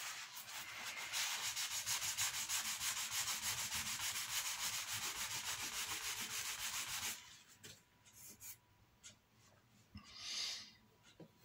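A paper towel rubbed quickly back and forth along a freshly superglued join in a wooden board, wiping off the excess glue: a rapid scratchy rubbing, about five strokes a second, that stops about seven seconds in. A few light taps and a short rustle follow.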